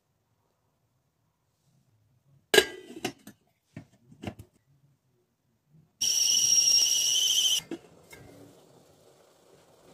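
A glass pot lid clinks down onto a steamer pot with a short ring, followed by a few lighter clicks. About six seconds in, steam escapes under the lid in a whistling hiss lasting about a second and a half, which cuts off suddenly.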